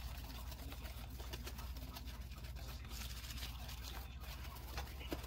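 Cake batter being mixed by hand in a plastic tub: soft, irregular clicks and taps, with a few sharper ticks near the end, over a steady low hum.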